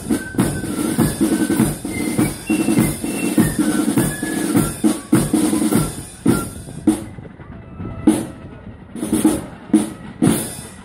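Marching flute band playing, with side drums and a bass drum keeping a steady beat under a high flute melody. About seven seconds in the flutes stop and the drums carry on with a few spaced strokes.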